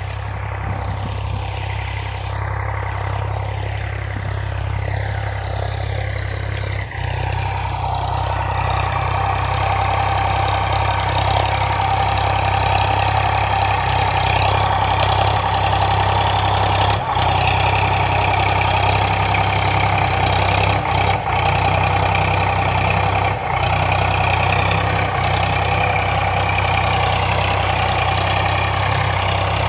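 Eicher 485 tractor's diesel engine running steadily under load as it pulls a harrow through the field, growing louder about seven seconds in and then holding steady.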